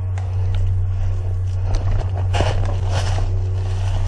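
Footsteps through dry leaf litter and twigs, a scatter of crackles that is thickest about two to three seconds in, over a steady low hum.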